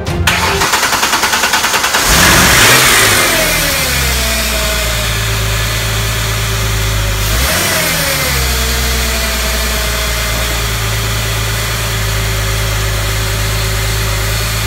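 Car engine cranking on its starter for about two seconds, then catching, revving and falling back to a steady idle; it gives one brief rev about seven seconds in, then idles on. This is a first start after the car sat unused for a year, on a newly fitted battery.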